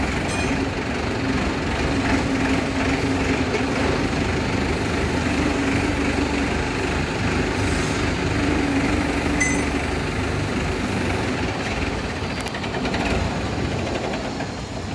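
Sonalika tractor's diesel engine running steadily, a constant mechanical drone, as the tractor works a mounted hydraulic earth auger rig.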